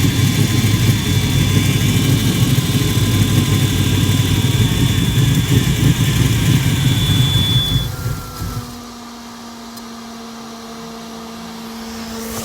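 Carbureted, cammed 5.0 V8 engine running with a loud, choppy low rumble, then cutting off about eight and a half seconds in, leaving a much fainter steady hum. The owner suspects the carburetor needs adjusting because it is blowing black smoke.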